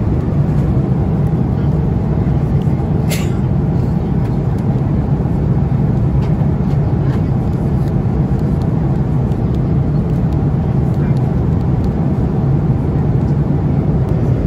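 Steady cabin noise of an Airbus A330-200 in flight: a constant low drone of engines and airflow. A single short click sounds about three seconds in.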